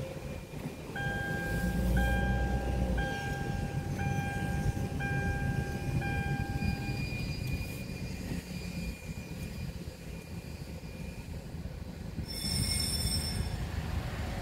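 Six electronic beeps, about one a second and each nearly a second long, heard from inside a car over its steady running noise; a brief high-pitched whine follows near the end.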